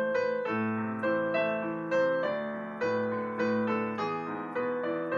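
Instrumental piano-style keyboard accompaniment: struck melody notes and chords, each starting sharply and fading, over a held bass note, with no voice.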